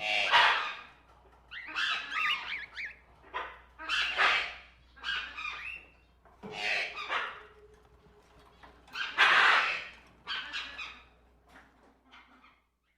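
A bird calling over and over: short calls with bending pitch, about one every second or so, dying away near the end.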